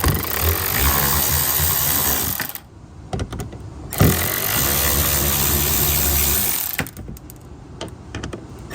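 Power drill-driver with a T30 Torx bit spinning out fender liner screws, in two runs of about two and a half seconds each with a short pause between.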